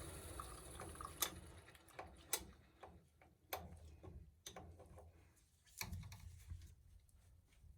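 Faint, irregular metallic clicks and taps, about one a second, from tools and parts being handled at an oil burner's pump bleeder.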